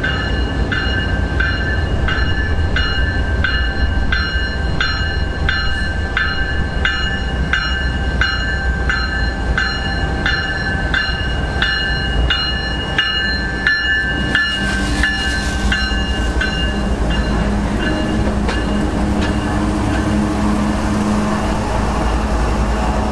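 CSX diesel-electric freight locomotives rumbling past at low speed while street running, with a bell ringing steadily at about one and a half strokes a second. The bell fades out about two-thirds of the way through as the locomotives go by, leaving a steady engine drone over the rolling cars.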